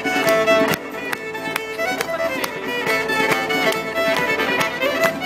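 Live fiddle-led music: a tune of quick, changing notes over a regular beat.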